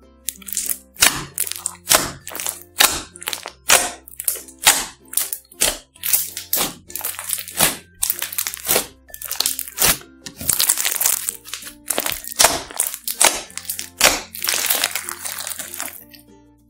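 Clear slime mixed with beads being squeezed and folded by hand, giving a quick run of sharp wet clicks and crackles, two or three a second with denser crackling bursts, over light background music.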